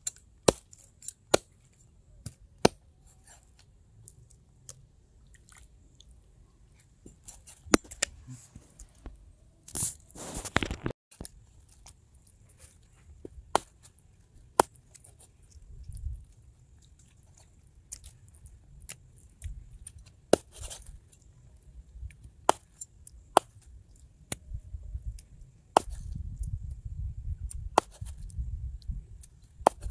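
Cutting and chopping while a rat carcass is prepared by hand: sharp clicks and cuts at irregular intervals, with a longer scraping rustle about ten seconds in and a low rumble near the end.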